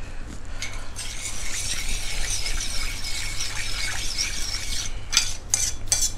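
Metal spoon stirring a thin liquid salad dressing in a bowl: a hissing scrape for a few seconds, then several sharp clinks of the spoon against the bowl near the end.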